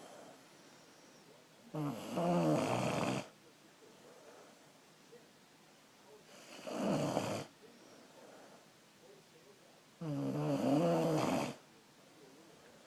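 Snoring: three loud snores, one about two seconds in, one near the middle and one about ten seconds in, each lasting a second or so with a wavering, rattling pitch, with quieter breathing-level gaps between them.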